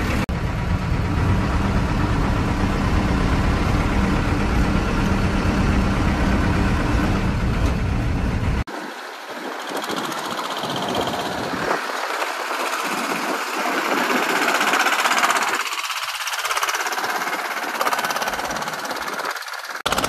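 Old bus's engine running, a loud deep rumble inside the cabin. About eight and a half seconds in, the deep rumble cuts off abruptly, and a thinner, uneven engine-and-road noise follows from the moving bus and the mini tractor running beside it.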